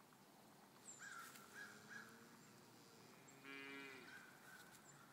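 Cattle mooing faintly over a quiet background, the clearest call about three and a half seconds in.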